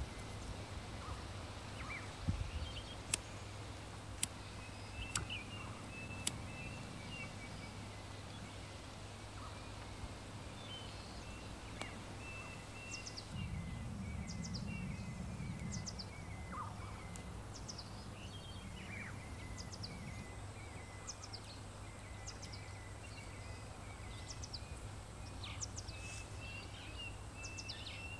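Faint woodland ambience: small birds chirping again and again, a few sharp clicks in the first several seconds, and a low rush for several seconds about halfway.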